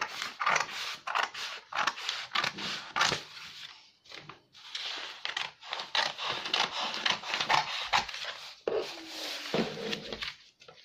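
Large tailor's scissors cutting through a sheet of pattern paper in a run of quick, irregular snips, with the paper rustling as it is held and turned.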